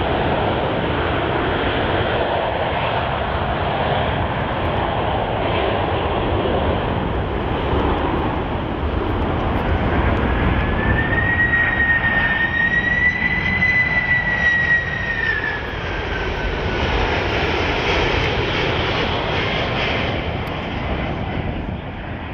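Boeing 767-300ER jet airliner's twin turbofan engines on final approach, passing overhead: a steady rush of jet noise, with a high engine whine coming in about halfway through that rises a little in pitch, then falls away as the plane goes by.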